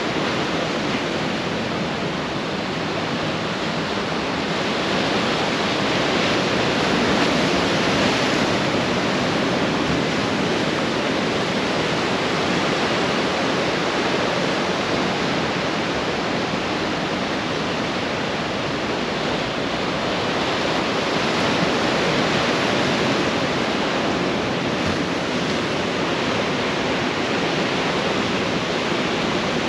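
Ocean surf breaking on a beach: a continuous rush of waves that swells a little about seven seconds in and again about twenty-one seconds in.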